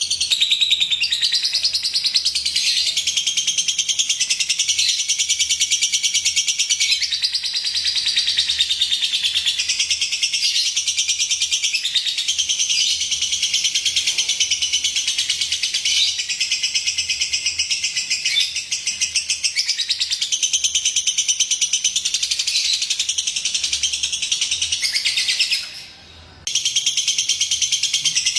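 Lovebird singing a long, continuous run of rapid high-pitched chattering and trilling, broken by one brief pause about 26 seconds in. It is a lure recording, played to get other lovebirds to sing.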